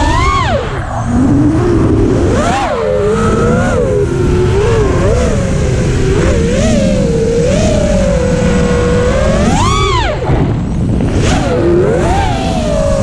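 FPV quadcopter's brushless motors and propellers whining, the pitch rising and falling with the throttle. It climbs sharply to a higher whine near the start and again about ten seconds in, over a low rumble.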